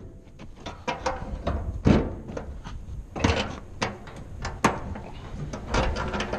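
Steel shipping-container door hardware clanking and clicking as the locking-bar handles and cam latches are worked by hand: a run of irregular sharp metal knocks, the loudest about two seconds in.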